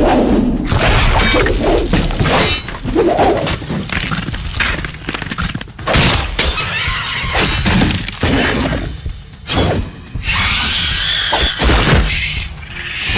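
A rapid run of crashes, thuds and smashing, film sound effects of things breaking, with a short lull about nine seconds in.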